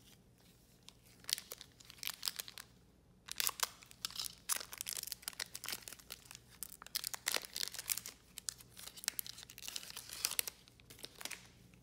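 Foil wrapper of a Panini Select baseball card pack crinkling and tearing as it is ripped open and the cards are pulled out, a dense run of sharp rustles that starts sparsely and thickens after about three seconds.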